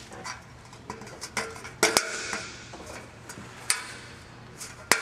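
Sharp clicks and light metallic knocks from handling sheet-metal light-fixture parts and a plastic wire bushing, with the loudest clicks about two seconds in and just before the end.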